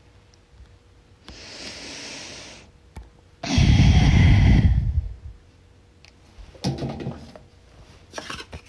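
A person draws a breath, then breathes out hard close to the phone's microphone, a rush of air lasting about a second and a half, a little after the middle.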